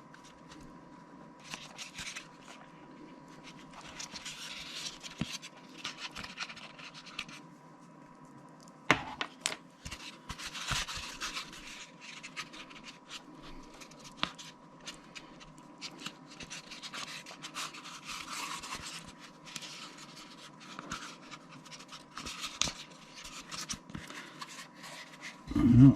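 Earbuds being pried out of their tight cut-outs in a foam packaging insert by hand: irregular scratching and rubbing of foam, with scattered small clicks and one sharper click about nine seconds in.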